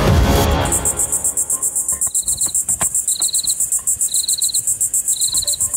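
Crickets calling at dusk: a loud, high, fast-pulsing trill, with a lower chirp repeating about once a second. A few faint clicks and knocks sound under them.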